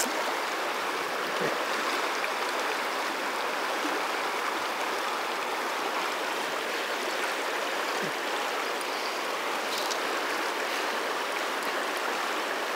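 Fast current of the Firehole River rushing steadily close up, with no change in level.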